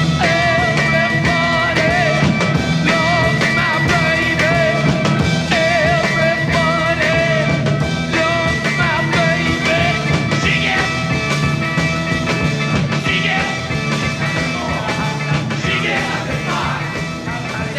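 Psychedelic rock music with a lead line that wavers and bends in pitch over steady low notes, growing a little quieter near the end.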